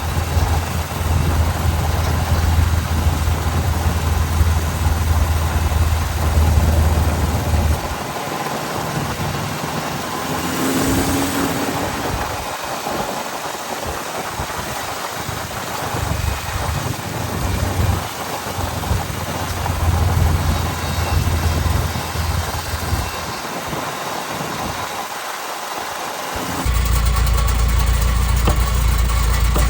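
A VW Vanagon driving: engine, drivetrain and road noise with a low rumble. The rumble is strong at first, drops away and comes back in stretches through the middle, then returns steady near the end.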